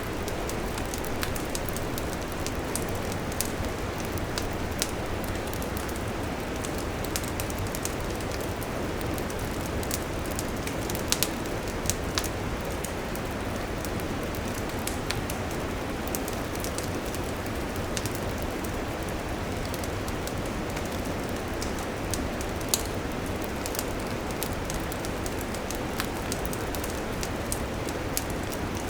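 Wood campfire crackling: a steady hiss from the burning wood with frequent sharp pops and snaps scattered irregularly through it, a few louder pops standing out about eleven, twelve and twenty-three seconds in.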